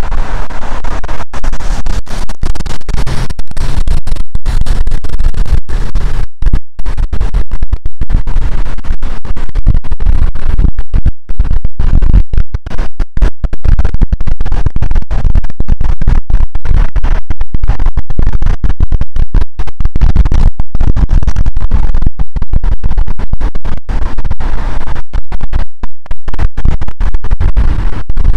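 Strong wind buffeting the microphone: a loud, distorted low rumble close to full scale, broken by frequent brief dropouts.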